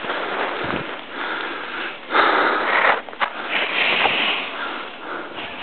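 Skis sliding and scraping over snow: a hiss that swells and fades in surges, loudest around two seconds in and again about four seconds in.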